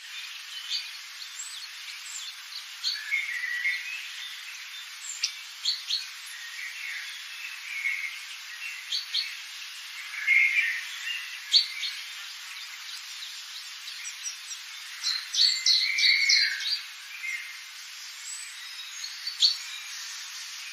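Wild birds chirping and calling in short, scattered notes over a steady high hiss, busiest about three quarters of the way through.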